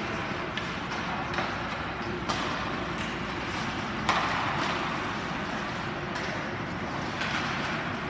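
Ice hockey play in an indoor rink: skates scraping the ice and sticks clacking on the puck in a few sharp hits, the loudest about four seconds in, over the rink's steady hum.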